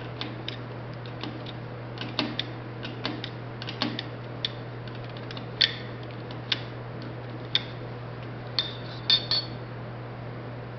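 Irregular sharp metallic clicks and taps of small steel parts being handled and shifted on the lathe, about a dozen, loudest a little past halfway and near the end, over a steady low hum.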